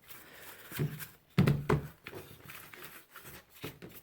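A paint brush scrubbing and dabbing at greasy, alcohol-wetted microwave-oven parts, with a few light irregular knocks as the parts are handled, the loudest about a second and a half in.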